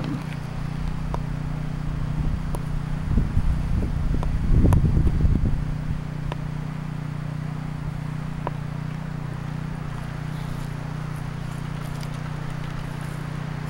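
Wind buffeting the microphone in low rumbling gusts about three to six seconds in, over a steady low hum.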